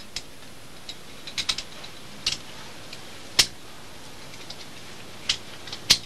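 Metal climbing hardware, carabiners and a spring-loaded camming device ('friend'), clicking and clinking as it is handled and set into a rock crack. The clicks are short, sharp and irregular, some in quick clusters, the loudest about three and a half and six seconds in.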